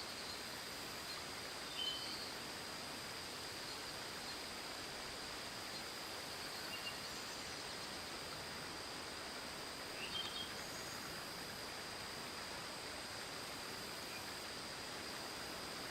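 Outdoor nature ambience: a steady hiss with a constant high-pitched tone, broken by a few short bird chirps about two seconds in and again around ten seconds in.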